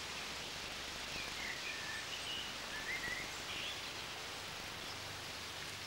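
Outdoor ambience: a steady hiss of background noise with a few faint bird chirps in the first half.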